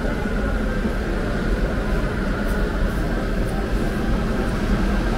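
Steady low rumbling street noise with no single clear event.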